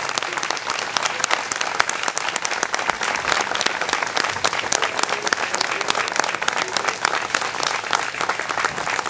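A crowd applauding, many hands clapping steadily and densely throughout.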